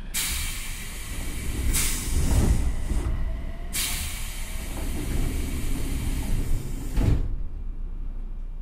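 Loud compressed-air hiss aboard an Odakyu 1000 series electric train standing at a station, with a few low thumps. It cuts off suddenly with a thud about seven seconds in, leaving a low hum.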